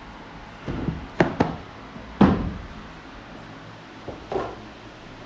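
Weight plates being handled and loaded onto an Olympic barbell: a series of knocks and clanks of bumper plates and metal, the loudest a little over two seconds in.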